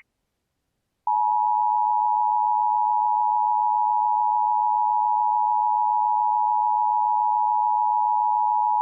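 Emergency Alert System attention tone: a single steady electronic tone that starts about a second in and holds unchanged. It signals that a spoken alert message is about to follow.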